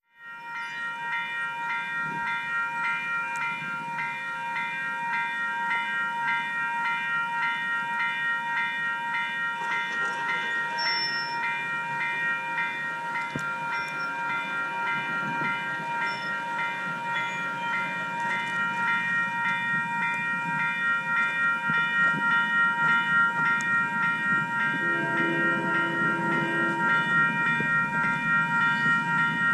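Railway level-crossing bell ringing steadily with quick, even strokes as the crossing warning runs. An approaching train's rumble builds in the second half, and a train horn sounds a held chord near the end.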